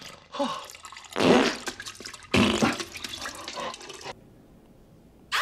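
Wet fart and splattering diarrhea noises from a man on a toilet. There is a short burst, then two longer ones, the last lasting about two seconds before it drops away.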